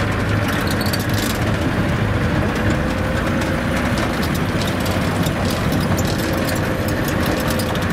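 Engine and road noise inside the cabin of an old vehicle driving slowly over a rough dirt road: a steady low drone with a faint steady whine and many small clicks and rattles.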